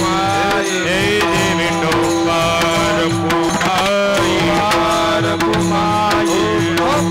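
Devotional kirtan music: a melody sung or played over a steady held drone, with tabla-style drums keeping a regular beat.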